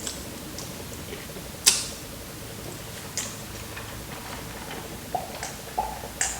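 Close-miked eating sounds: a few sharp mouth clicks and crunches, one about two seconds in and several near the end, between quiet stretches.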